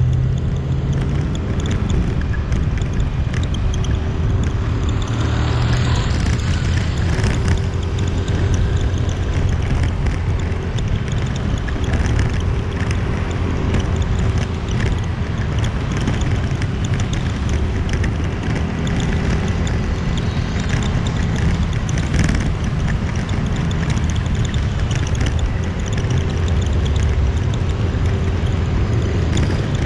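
Motorbike engine running steadily while riding through traffic, with wind noise on the microphone.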